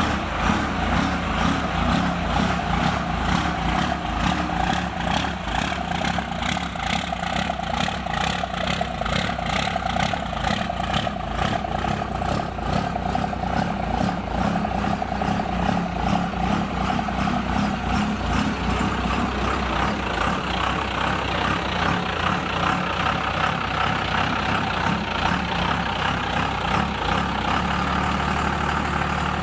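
Dodge Ram's 24-valve 5.9 Cummins turbo diesel with a P7100 injection pump, idling and creeping at low speed with a steady, even pulsing run.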